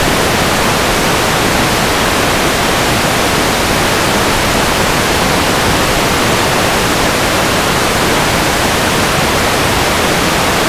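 Loud, steady static hiss with no tone or rhythm in it: the no-signal noise of an analog video receiver whose link to the drone has been lost.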